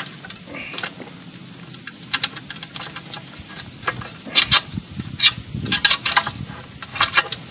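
Small metal clicks and scrapes as a bolt is worked against a mounting hole in a metal motorcycle skid plate, most of them in the second half, over a steady hiss.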